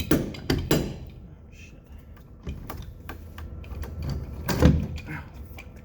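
Scattered metallic clicks and knocks from handling a YQK hydraulic compression crimper and its dies, with the loudest knock a little past halfway.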